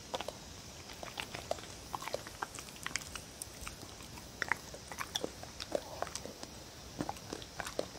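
A dog chewing and licking up soft cubes of tofu: irregular wet mouth clicks and smacks.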